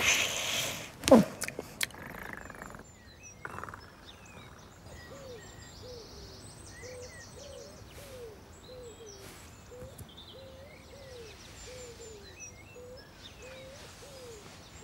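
Cartoon dawn birdsong: a run of short, low, bending calls about twice a second, with faint higher trills above them. It opens with a brief loud rush of noise and a falling tone.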